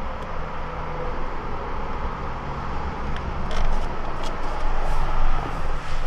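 Steady low rumble with a faint hum and a few light clicks in the second half.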